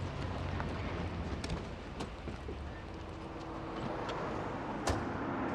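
Street traffic and a car engine running, a steady low rumble and hiss, with a few sharp knocks, around one and two seconds in and again near the end.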